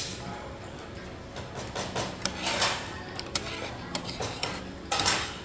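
Tableware clinking during a meal: spoons and cutlery knocking against bowls and plates in several scattered sharp clicks over a steady background hubbub.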